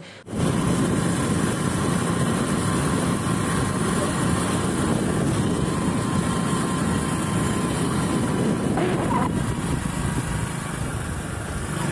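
Steady road noise of a moving vehicle: engine drone mixed with wind rushing over the microphone.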